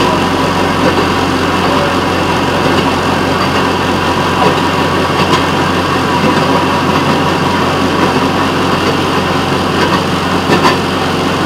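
Railroad motorcar (speeder) running steadily along the track: a constant engine hum mixed with wheel noise on the rails, with a few sharp clicks, two close together near the end.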